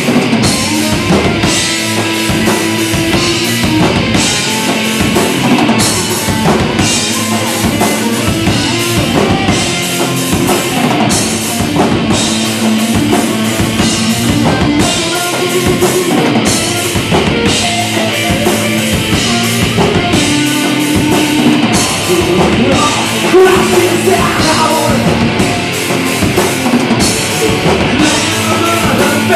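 A metal band playing live: loud distorted guitars, bass and a pounding drum kit with crashing cymbals, an instrumental passage with no singing.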